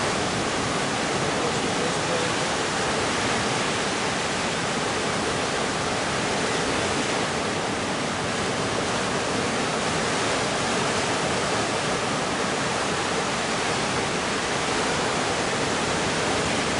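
Ocean surf making a steady, unbroken rushing noise as waves break along the reef.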